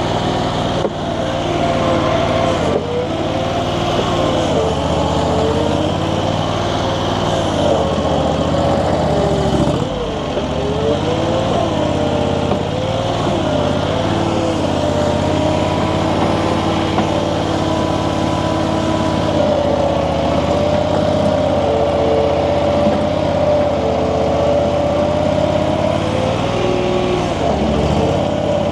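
Infront YF380 mini skid steer's engine running steadily at working throttle while the loader digs and carries dirt. Its pitch sags briefly about ten seconds in and again near the end as it takes load.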